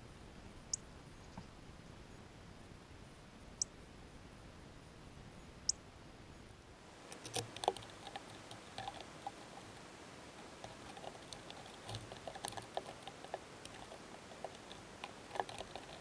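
Female northern cardinal pecking and cracking seeds on a wooden bird table close to the microphone: a quick, irregular run of small clicks and taps that starts about seven seconds in. Before that, only a few single sharp clicks.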